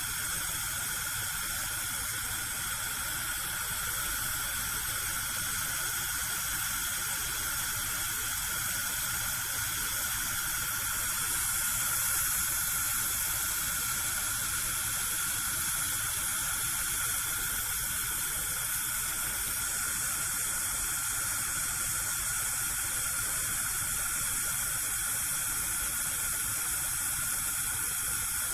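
Gas cooker burner alight, its flame hissing steadily, swelling slightly for a few seconds about halfway through.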